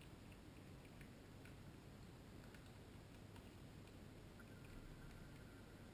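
Near silence: a low room hum with a few faint scattered ticks, and a faint steady high tone that starts past the middle.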